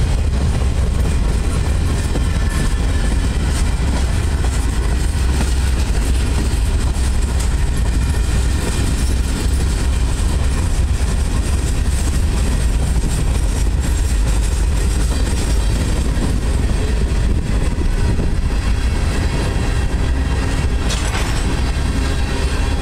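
Freight cars of a long mixed freight train rolling past close by: a steady low rumble of steel wheels on rail with frequent clicks, and one sharper clank near the end.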